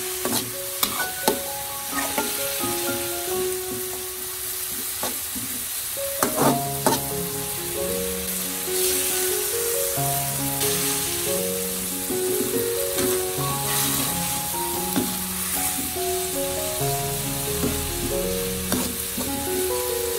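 Shredded ginger and soybeans sizzling in a metal wok, stirred with a slotted metal spatula that clicks against the pan a few times, most sharply about six to seven seconds in. A melody of background music plays underneath.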